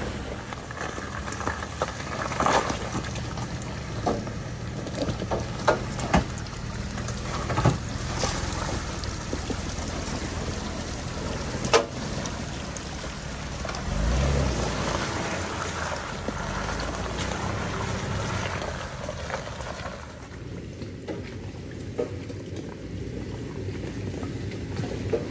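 Off-road SUV crawling a trail: the engine runs low and steady under scattered sharp knocks and clunks, with a short louder surge of engine about fourteen seconds in.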